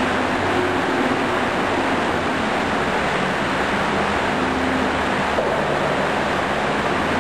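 Steady, even rushing background noise with a faint low hum underneath, unchanging throughout.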